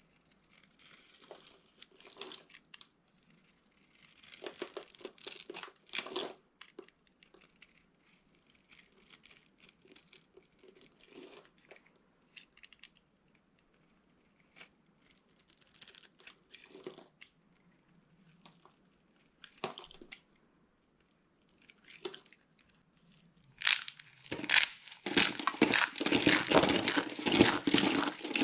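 Dry bar soap being crushed: soft, scattered crunching and crumbling with pauses, then a much louder run of dense crunching near the end.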